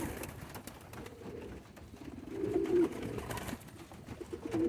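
Domestic pigeons cooing softly, with one clearer coo about halfway through and a fainter one near the end.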